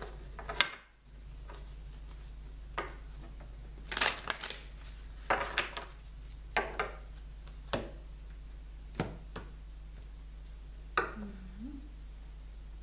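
Tarot cards being shuffled and handled on a table: a string of short crisp rustles and taps, some in quick pairs, over a low steady hum.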